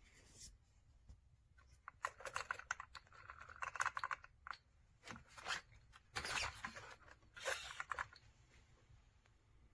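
Irregular rapid clicking and crackling in several clusters, between about two and eight seconds in.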